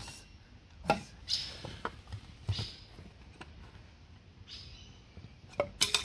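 Knocks and scraping on a wooden stingless-bee hive box as it is worked open: a sharp knock about a second in, a few short scrapes and clicks, then a cluster of loud sharp cracks near the end.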